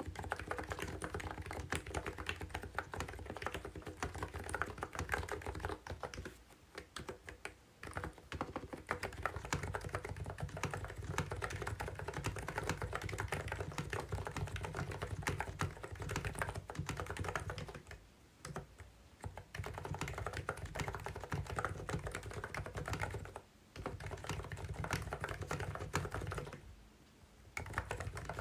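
Continuous fast typing on a COX CNK84W compact electro-capacitive (contactless) keyboard, dense keystrokes with a few brief pauses.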